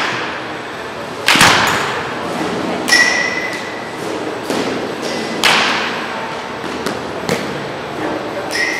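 Baseball bat hitting pitched balls: about six sharp hits, roughly every one and a half seconds. Two of them leave a short ringing ping, like a metal bat.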